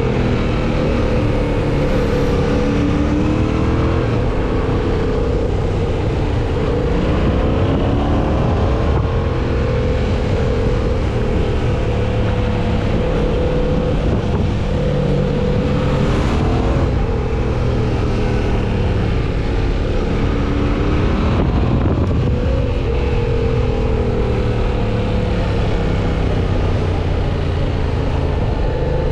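Yamaha MT-07's parallel-twin engine pulling under way, its pitch rising and falling again and again with throttle and gear changes.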